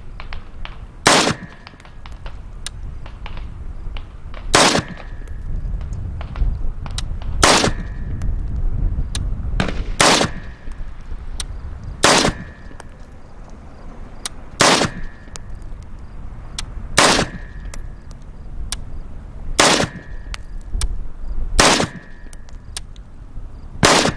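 AR-15 rifle firing 5.56 NATO rounds: ten single shots, about two to three seconds apart.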